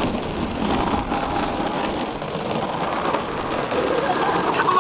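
Longboard wheels rolling over a paved path, a steady rolling noise, with a person's running footsteps.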